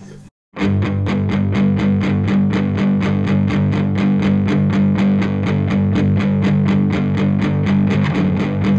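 The last chord of one punk rock song dies away, a brief gap of silence, then the next song starts with a distorted electric guitar picking a fast, even rhythm over bass, with no vocals yet.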